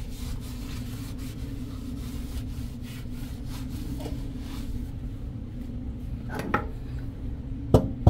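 Rubbing and scraping at a seawater faucet fitting during a repair, then a couple of sharp knocks near the end, the last one the loudest, over a steady low hum.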